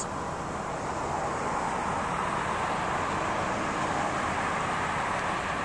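Road traffic going by: a steady rushing hiss of tyres that swells slightly in the middle and eases off again.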